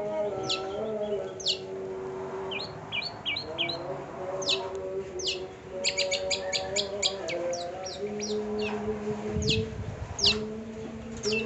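Long-tailed shrike singing: quick series of sharp, high, downward-sweeping chirps, densest about six to seven seconds in, over lower drawn-out tones.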